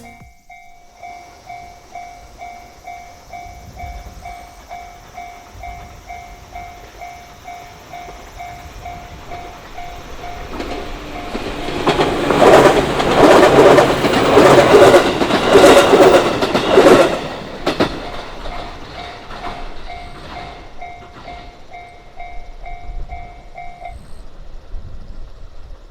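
Japanese railway level-crossing alarm ringing its repeating electronic ding, about one and a half strikes a second. Midway a train passes over the crossing loudly, with its wheels clacking over the rail joints. The alarm rings on after the train has gone and stops shortly before the end.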